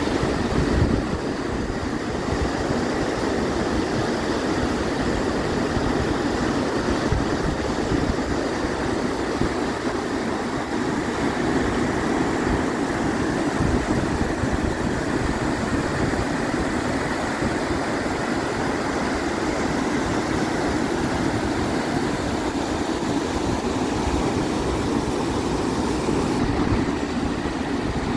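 Štrbački buk waterfall on the Una river: white water pouring over the cascades and through the rapids in a steady, loud rush.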